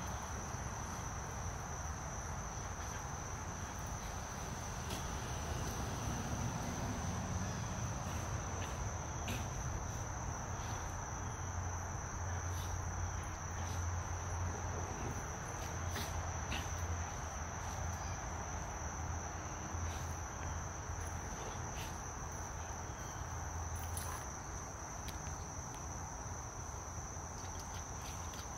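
Steady high-pitched chirring of insects, with a low background hum and a few faint knocks.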